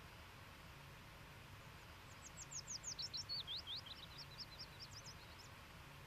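A small songbird sings one rapid run of short, down-slurred whistled notes that step down in pitch and then climb back up, over a faint steady hiss.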